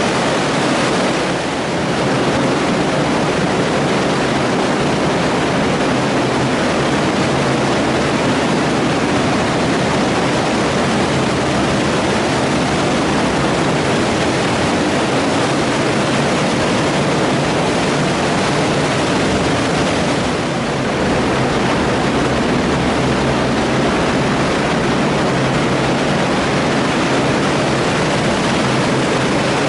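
Stormwater rushing fast through the tiled channel of a storm-sewer diversion chamber during a heavy summer downpour, a steady loud rush of turbulent water inside the concrete chamber.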